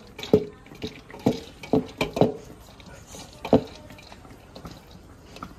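Metal spoon and cooking pot knocking against a steel serving bowl as biryani rice is scooped and tipped out: about six sharp knocks with a short ring in the first four seconds, then a few faint taps.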